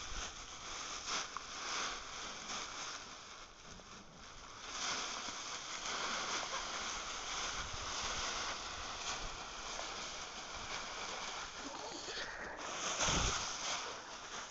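Dry fallen leaves crunching and rustling as a Weimaraner and another dog romp through a deep leaf pile, louder from about five seconds in, with a stronger burst of rustling near the end.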